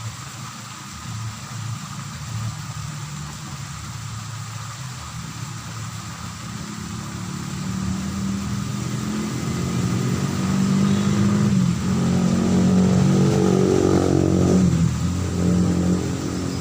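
A motor vehicle's engine approaches and passes close by. It grows louder from about halfway in, is loudest near the end with its pitch dropping as it goes past, then eases off a little.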